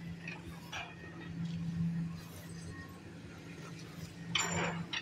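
A steady low engine hum with a few faint clinks, and a short rushing noise about four and a half seconds in.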